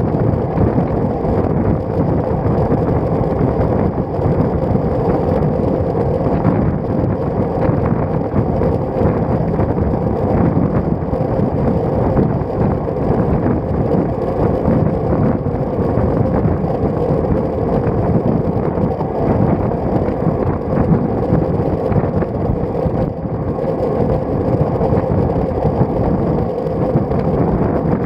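Wind rushing steadily over a bike-mounted action camera's microphone while a road bike is ridden at speed.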